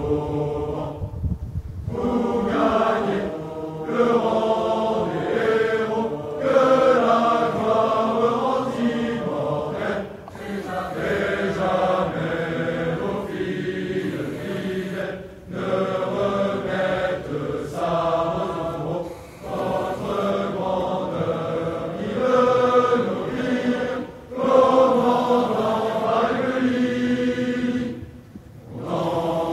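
A large choir of officer cadets singing an ode a cappella, with no instruments, in sung phrases broken by short breath pauses every few seconds.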